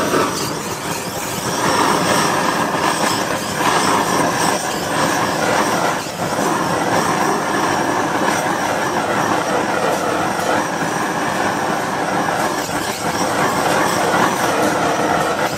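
Handheld butane blowtorch burning with a loud, steady rushing hiss of flame as it is played over a sauced octopus skewer.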